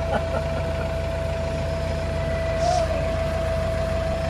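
Tractor engine idling steadily, a low even rumble with a thin steady whine above it.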